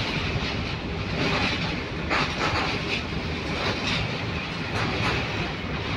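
Container freight train's wagons rolling past at speed: a steady rumble of wheels on rail with repeated clatter as the bogies pass over the track, loudest about two seconds in.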